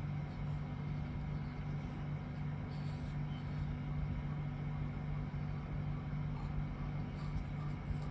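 Small portable electric fan running at a steady speed, its motor giving a constant low hum under the whoosh of the blades.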